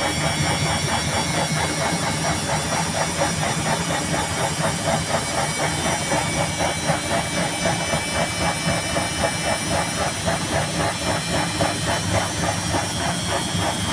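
Washing machine running while water fills, agitating the wash: a steady hiss of inflowing water under a fast, even rhythmic beat from the machine. In a video titled for the machine knocking hard.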